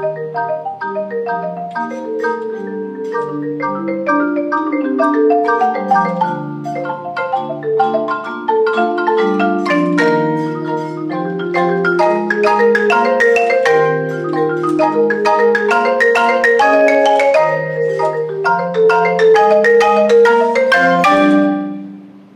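A quartet of keyboard percussion instruments, marimbas among them, plays fast interlocking mallet patterns of many struck, ringing notes. About 21 seconds in they strike a final chord that dies away.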